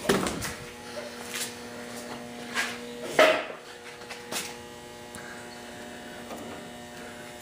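Steady electrical hum under a few knocks and rustles of PC case parts being handled, the loudest knock a little after three seconds in.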